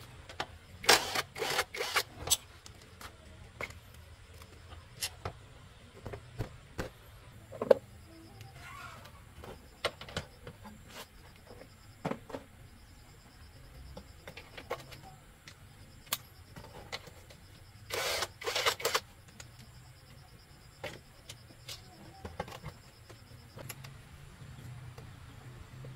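Scattered clicks, taps and knocks of tools and parts being handled during motorbike repair work, with two short clusters about a second in and around eighteen seconds, over a faint steady low hum.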